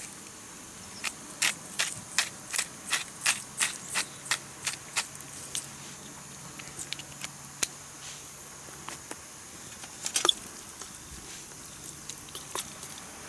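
A run of sharp, evenly spaced clicks, about three a second, for about four seconds, then a few scattered clicks: salt being shaken onto the pasta from a shaker.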